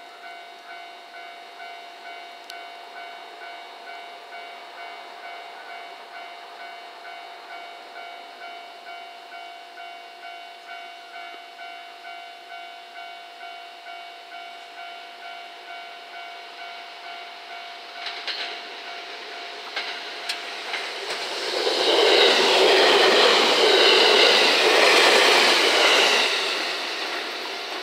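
A level crossing warning bell dinging steadily about twice a second, then a four-car JR West 227 series electric multiple unit approaching and passing close by. Its wheels click over the rail joints, then a loud rush of wheels and motor whine lasts about five seconds before fading.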